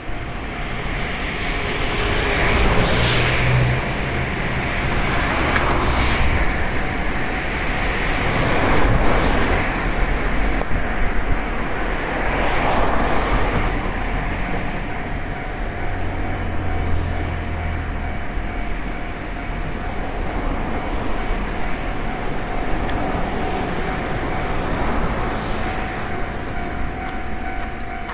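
Road traffic at a railway level crossing, with several vehicles passing one after another. About halfway through, a steady ringing tone starts and keeps going: the crossing's warning alarm, sounding as a train approaches.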